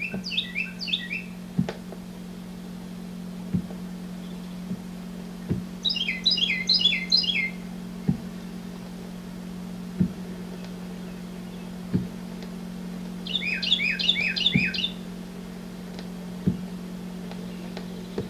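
A bird calling in three short bursts, each a quick run of falling chirps, over a steady low hum with a soft click about every two seconds.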